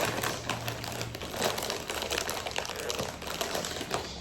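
Plastic food packaging crinkling and crackling as it is handled, a dense run of irregular small crackles.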